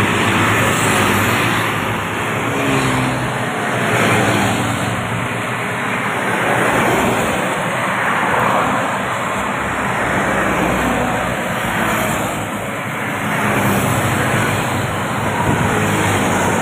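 Busy two-lane highway traffic: tour coaches, a truck and motorcycles pass close by one after another. Each pass-by swells and fades in a steady rush of engine and tyre noise.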